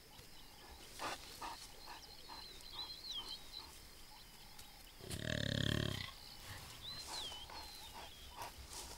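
A lion's growl, one low call about a second long a little past the middle, over faint bird calls.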